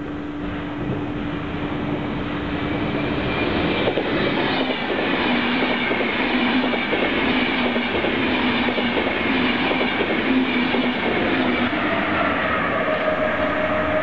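ÖBB Railjet passenger train approaching and passing at speed on the near track. The rush of wheels on rails builds over the first few seconds, then runs loud and steady with rapid clicks as the wheels cross rail joints, over a steady droning tone.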